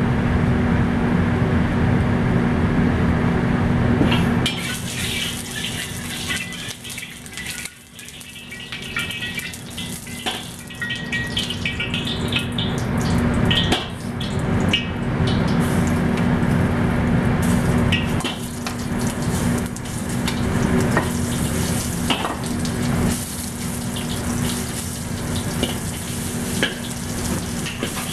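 Oil heating in a wok over a gas burner, with a steady hum underneath. About halfway through, beef slices go into the hot oil and sizzle, and a metal spatula scrapes and clicks against the wok.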